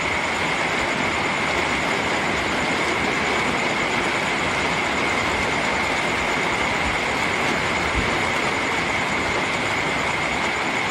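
Steady soft rain falling, an even unbroken hiss, with a steady high tone running through it. There is a single soft low thump about eight seconds in.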